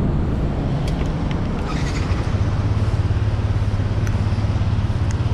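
Yamaha NMAX scooter's single-cylinder engine being started after its CVT was cleaned and refitted with a Speedtuner set: a few light clicks, then about two seconds in the engine catches and settles into a steady idle.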